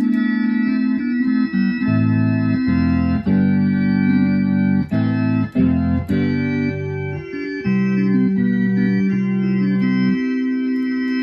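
Vox Continental 300 combo organ played in sustained chords. The chords change every second or so with brief gaps, and low bass notes come in below them about two seconds in and drop out near the end.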